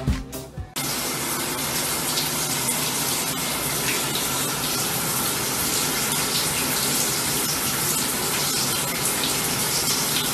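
Shower water running: a steady hiss of spray that starts suddenly about a second in and holds even.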